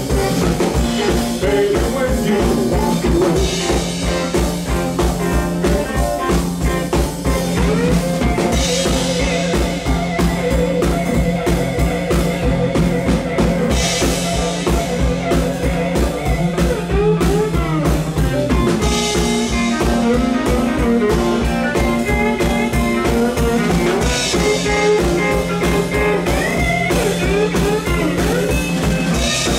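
Live blues band: a semi-hollow electric guitar plays a lead solo with bending notes over a second hollow-body electric guitar and a steady beat on a Gretsch drum kit.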